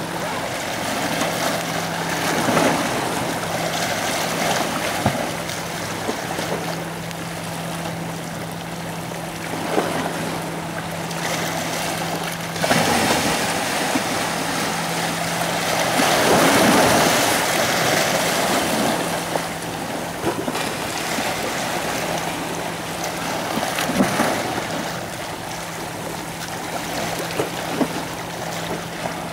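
Sea water washing and lapping over rocks, swelling and ebbing every few seconds, with a steady low hum underneath.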